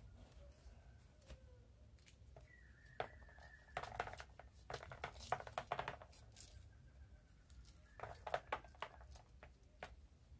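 Fresh bean pods (feijão verde) being split open and shelled by hand into a plastic bowl: faint scattered snaps and tearing of the pods, in short clusters.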